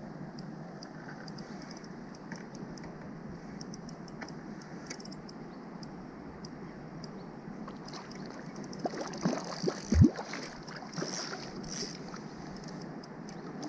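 Water lapping around an inflatable float tube while a hooked trout is played on a spinning rod. From about nine seconds in there is a run of splashes and knocks as the fish comes close to the tube, the loudest a dull thump about ten seconds in.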